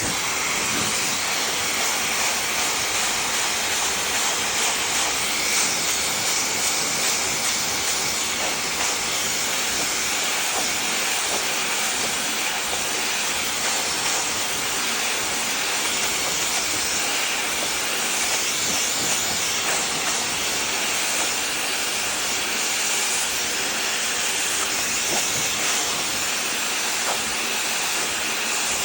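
Handheld hairdryer running steadily, a constant airy hiss with no breaks.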